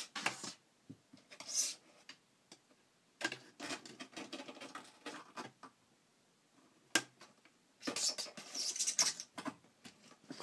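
A kitten's claws scratching and scrabbling on a wooden shelf unit as it climbs, in several bursts of quick scratches with short pauses between.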